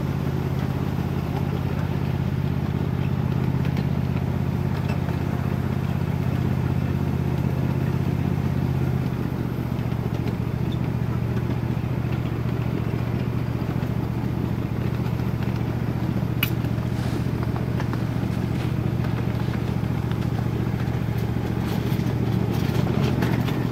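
Small engine of a ride-on miniature railway train running steadily, with wheels clattering along the track; its pitch drops a little about nine seconds in. A run of clicks near the end as the train rolls over a track switch.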